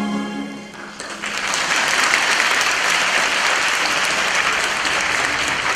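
The music's final held note fades out within the first second, then a theatre audience applauds steadily.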